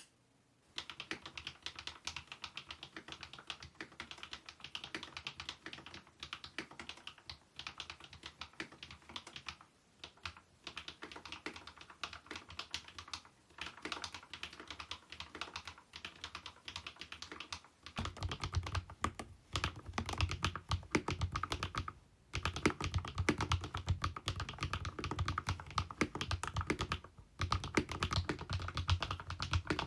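Fast typing on a Kemove K87 1980 mechanical keyboard: a dense, continuous stream of keystroke clacks with a few brief pauses. About eighteen seconds in, the keystrokes turn louder and deeper.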